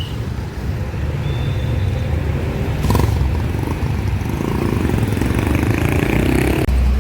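Road traffic: a steady low engine rumble with a sharp knock about three seconds in, then a swelling rush of a vehicle passing close that cuts off abruptly near the end.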